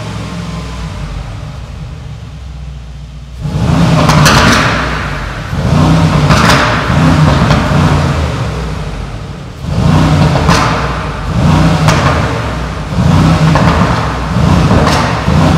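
Brabus G900's twin-turbo V8 heard from outside through its side-exit Brabus exhausts. It idles for about three seconds, then is revved in about six quick blips, each followed by sharp pops like gunshots from both sides.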